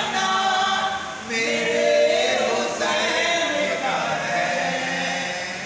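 Voices singing an Urdu devotional qasida in praise of Hussain, in long held notes that bend and waver in pitch.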